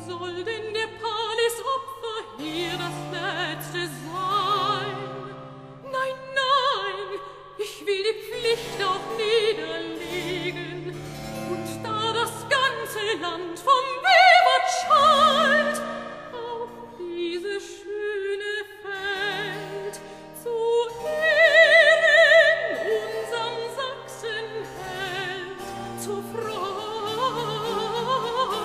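Soprano singing a German secco recitative with vibrato over a basso continuo of harpsichord chords and held low string notes. Near the end the voice breaks into a quick melismatic run over a moving bass line.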